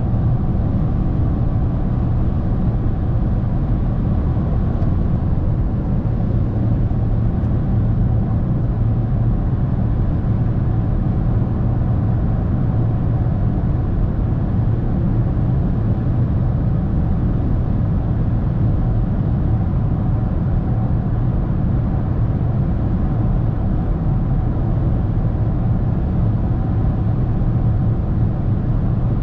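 Inside the cabin of a Toyota Corolla 1.6 Valvematic cruising at steady motorway speed: a steady low drone of tyre and road noise mixed with the four-cylinder petrol engine running evenly.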